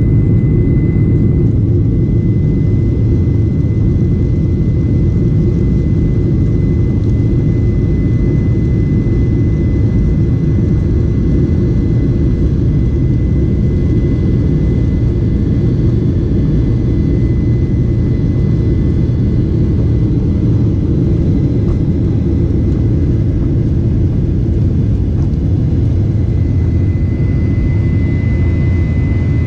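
Airliner engines heard from inside the passenger cabin during takeoff: a loud, steady low roar with a thin, high steady whine above it.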